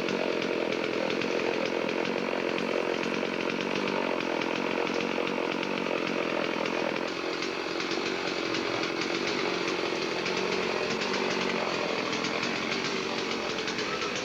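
Chainsaw running steadily, its sound dropping a little in level and tone about halfway through.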